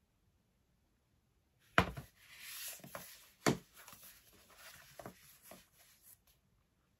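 An iPad in its Magic Keyboard case and a rose-gold Apple device being handled: about two seconds in comes a sharp knock, then rubbing and scraping, a second sharp knock, and a few lighter knocks before it stops about a second before the end.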